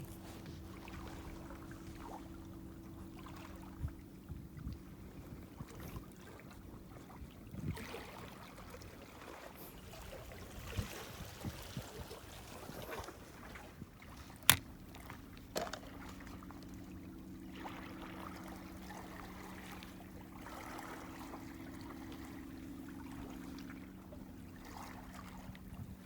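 A steady low mechanical hum that fades out for a stretch in the middle, with water trickling and scattered small clicks and knocks; one sharp click about halfway through is the loudest sound.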